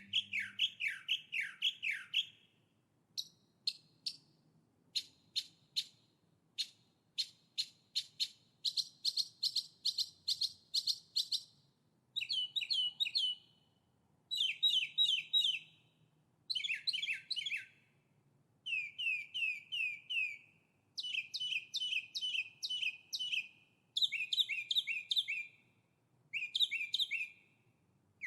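A songbird singing in repeated bouts of fast, even notes. Each bout lasts a second or two with short pauses between, and the note pattern changes from one bout to the next.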